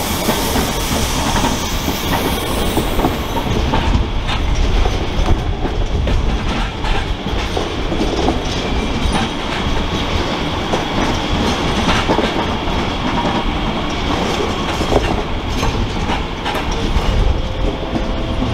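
DB Regio Talent 2 electric multiple units running through the station, their wheels clicking and clattering over the points and rail joints.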